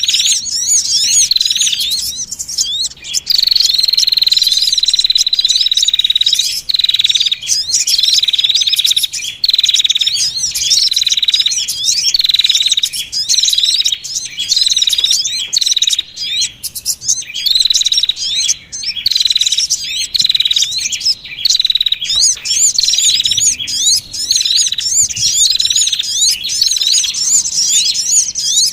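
Small-bird lure call recording: busy high chirping and twittering of small songbirds, with a strong high note repeating about once a second and one longer drawn-out note a few seconds in. It is the kind of call played to draw small birds such as the sogon down to a trap.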